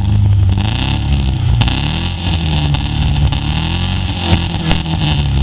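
Car engine revving, its pitch rising and falling again and again.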